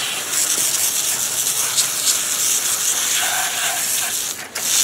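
Garden hose spray nozzle jetting water onto a boiled hog skull and wet concrete, a steady loud hiss of spray rinsing the leftover meat off the bone. The spray dips briefly near the end.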